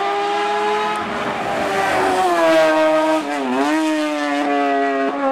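Silver Car S2 hillclimb race car's engine at high revs, pulling hard up the hill; its pitch climbs, dips sharply and recovers about three and a half seconds in as the throttle is briefly lifted, then holds high.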